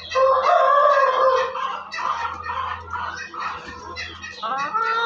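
Ayam Cemani chickens calling. A loud drawn-out call lasts about a second at the start, shorter clucking calls follow, and another rising call comes near the end.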